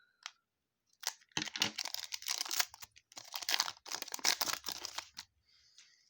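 Foil wrapper of a trading card pack being torn open and crinkled, in two long crackly stretches starting about a second in and three seconds in.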